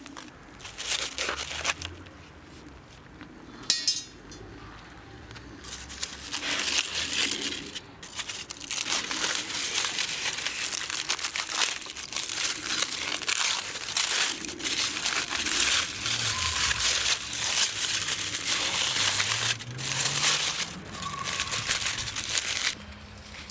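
Aluminium foil crinkling and rustling as it is handled, in dense, uneven stretches with short pauses, and one sharp clink about four seconds in.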